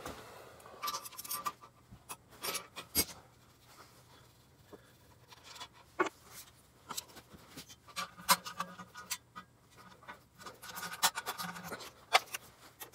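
Socket wrenches and metal hand tools clicking and scraping in scattered, irregular strokes while the front axle and fork pinch bolts of a dirt bike are worked loose.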